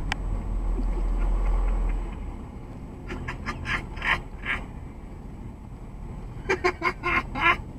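Low rumble of a car's road and engine noise inside the cabin, dying away about two seconds in as the car comes to a stop. Then two short runs of quick mechanical clicks, a few seconds apart.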